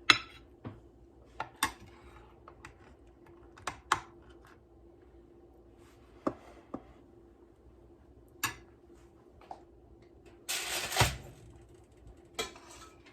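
Serving utensils clicking and tapping against a dish and plate as food is spooned out, in scattered single knocks, with a longer scraping stretch about ten and a half seconds in.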